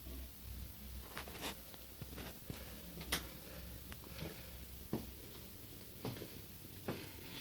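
Faint, scattered light knocks and clicks in a small room, about one a second, the sharpest about three seconds in.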